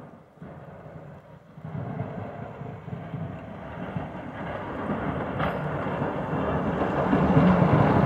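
Snowplow truck approaching, its engine and the plow working through the snow growing steadily louder as it nears. A short sharp click about five and a half seconds in.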